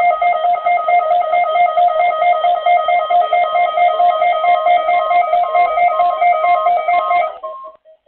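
Electronic emergency-alert attention tone: a loud, fast-pulsing note with higher tones above it that alternate in pitch in a repeating pattern. It cuts off about seven and a half seconds in, just ahead of the alert's spoken message.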